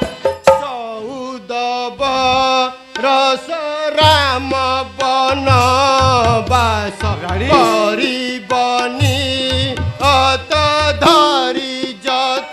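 A single voice singing a long, ornamented melodic line with wavering, gliding notes, over drum accompaniment of traditional Indian music.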